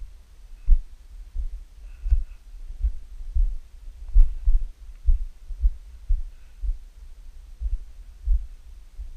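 Footsteps of a hiker walking over rocky ground, heard as low thuds through a body-worn camera, about one and a half steps a second, over a steady low rumble.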